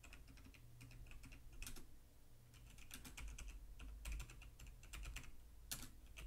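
Faint typing on a computer keyboard: irregular runs of quick key clicks.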